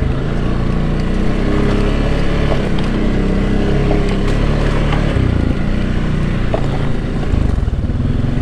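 Can-Am Outlander 700 ATV engine running with the throttle varying, its pitch rising and falling, with a few faint clicks.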